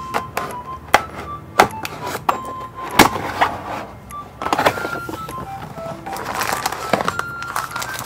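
Unboxing sounds from a cardboard keyboard box: a handful of sharp clicks and taps as a blade slices the seal along the box edge, then rustling and scraping of cardboard and plastic wrap as the lid comes off and the keyboard is lifted out. Soft background music plays underneath.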